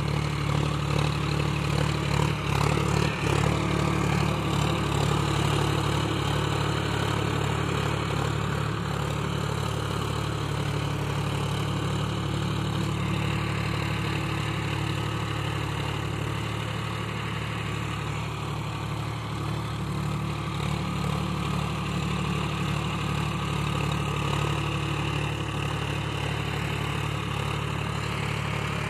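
John Deere 5050D tractor's three-cylinder diesel engine running steadily under load while pulling a laser land leveler through dry soil, with a few short knocks about two to three seconds in.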